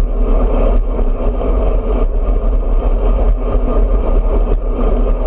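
Wind buffeting the microphone of a handlebar-mounted camera on a road bike riding at speed, mixed with tyre and road noise: a loud, steady low rumble with small irregular knocks from the road surface.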